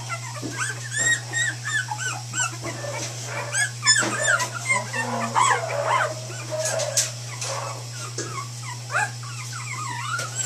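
A litter of young puppies whimpering and squealing, many short rising-and-falling squeaks overlapping one another, over a steady low hum.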